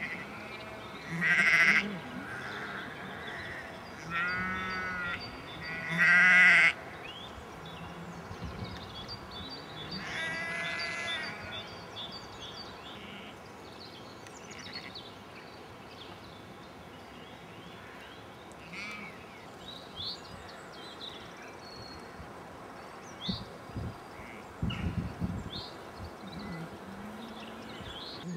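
Sheep bleating: four loud bleats in the first dozen seconds, then only faint, scattered sounds.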